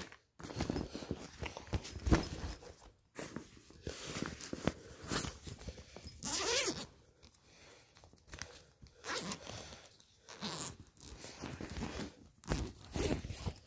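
A fabric backpack being handled and rummaged through: rustling and knocking in irregular bursts with short pauses, and a zipper being pulled.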